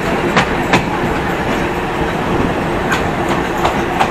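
Passenger train carriage rolling slowly along the track, with a steady running rumble. Its wheels click sharply over rail joints: a pair of clicks shortly after the start, then a quick run of four near the end. Heard from an open carriage window.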